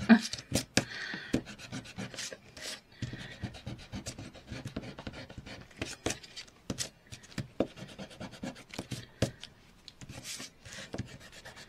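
A small hand tool rubbed and scratched over cardstock in many short, irregular strokes.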